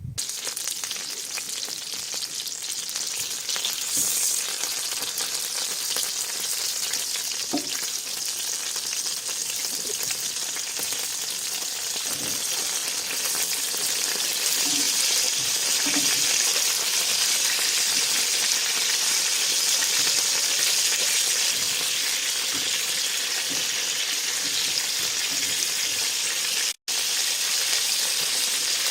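Food sizzling and frying in a hot pan, a steady hiss with a few soft knocks. The sound cuts out for a moment near the end.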